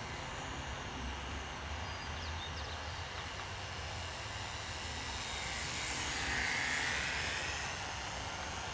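Radio-controlled model airplane's motor running overhead. It grows louder as the plane passes close about six to seven seconds in, then fades.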